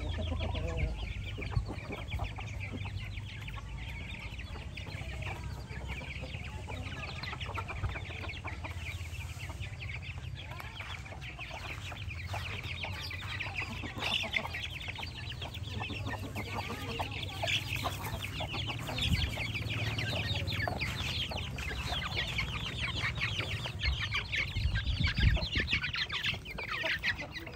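A flock of young chickens feeding at a trough, peeping and clucking continuously in a dense chorus of short high chirps that grows busier in the second half.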